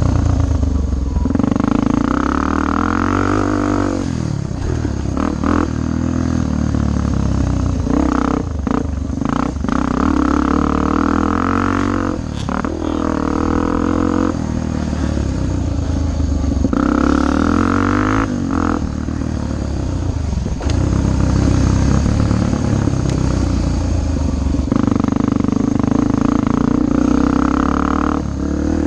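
Yamaha TTR250's air-cooled single-cylinder four-stroke engine heard from on the bike, revving up and easing off again and again as it rides a dirt trail. A few short knocks and rattles come as it goes over bumps.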